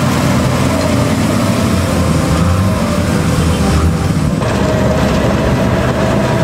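Diesel engine of a motor grader working a gravel road, running steadily and mostly low-pitched; the sound shifts about four seconds in.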